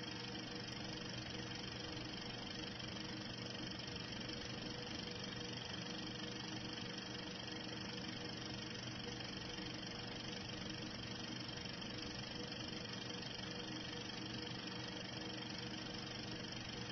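Steady hiss with a few faint, even hum tones underneath and no distinct sounds: the noise floor of an old home-movie film soundtrack.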